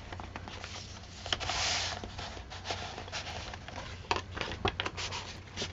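Paper handling: a handmade paper journal being moved and its pages turned, with light clicks and taps and a short sliding rustle about one and a half seconds in.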